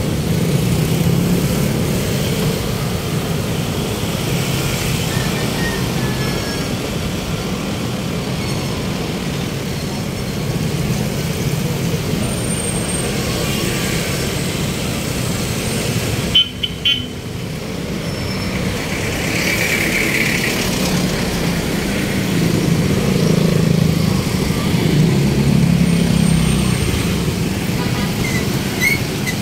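Steady city-street traffic noise from passing vehicles, with a short car horn toot a little past halfway.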